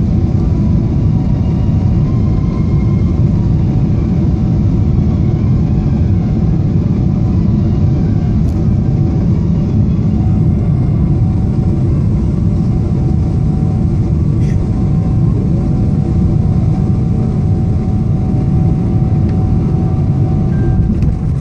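Cabin noise inside a Boeing 777-300ER: a steady, loud, low rumble of its GE90 jet engines and the airflow, with a faint steady whine running through it.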